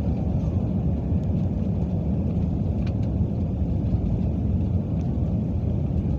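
Steady, deep cabin noise of an Airbus A320-family airliner's jet engines and airflow during the climb just after takeoff. A couple of faint ticks sound around the middle.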